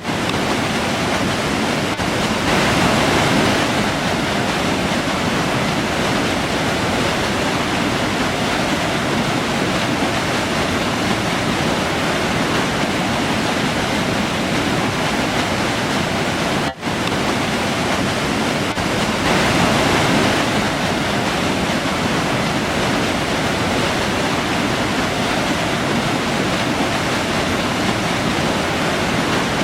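River water rushing in a steady noise that swells slightly twice, with a split-second gap in the sound a little past the middle.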